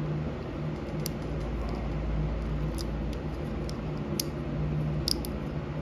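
A few faint, scattered clicks and plastic handling noise as a small pick is worked into a speed-sensor wiring plug to release its terminal pins, over a steady low hum.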